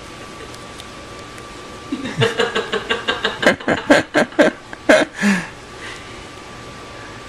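A person laughing: a run of short, rapid bursts starting about two seconds in and lasting about three seconds, ending on a falling note.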